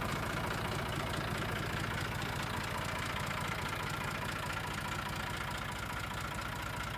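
1974 Massey Ferguson 135 Super 4WD tractor's engine idling steadily, with a fast, even chug.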